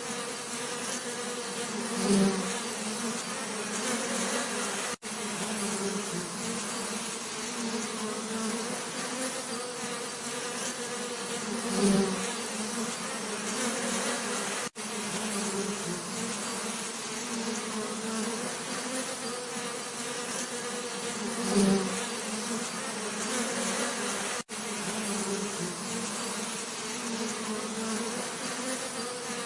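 Bees buzzing steadily, with a low droning hum. About every ten seconds the buzz swells louder for a moment, and there is a brief dropout three times.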